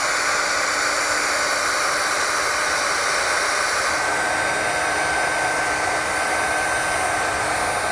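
Electric heat gun running steadily, its blower making a steady rush of air with a constant whine, as it shrinks down a heat-shrink butt connector on a spliced wire.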